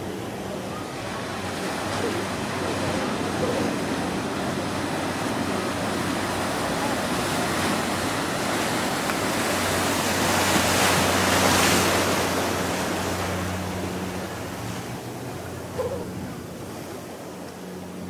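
Ocean surf rushing and washing against a seawall, swelling to its loudest about two-thirds of the way through and then easing off, with a faint steady low hum underneath.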